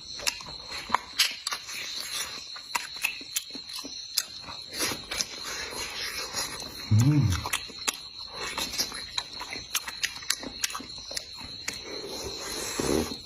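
Close-up eating sounds of someone chewing braised pig's trotter: frequent wet smacks and clicks of the mouth, over a steady high insect-like drone. About seven seconds in, a short low hum or grunt from the eater.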